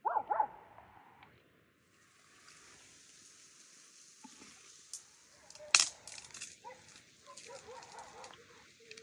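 Dead branches being gathered and broken in undergrowth: twigs cracking and leaves rustling over a steady hiss, with one sharp snap of a stick near the middle. A brief pitched sound at the very start.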